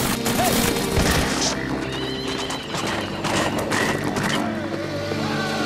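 Dramatic soundtrack music with loud crashing noise near the start and again about three seconds in, and horses whinnying.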